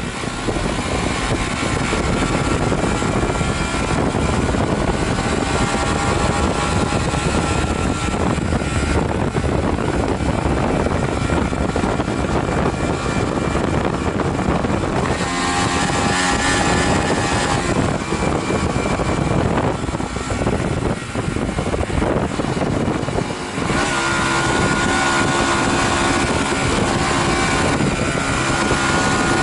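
Honda Varadero 125's small V-twin engine running on a mountain road ride, with heavy wind rush over the microphone. The engine note changes pitch a little past the middle and again later, with brief dips in loudness in between as the rider changes speed.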